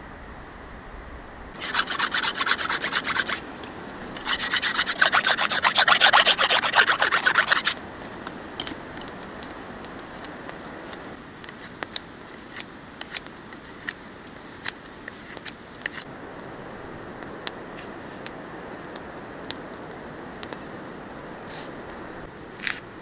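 Rapid rasping strokes on wood, in two bursts of about two and three seconds, followed by scattered light ticks and clicks.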